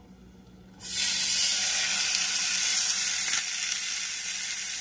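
Raw beef laid into a hot pan, sizzling as it starts to sear: a hiss that starts suddenly about a second in and then runs on steadily, easing slightly a little past three seconds.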